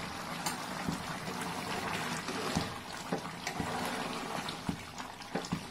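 Watery chicken curry simmering in an aluminium pot, a steady bubbling with many small pops, as a ladle stirs through it. The chicken is cooking in the water it has released into the yogurt gravy.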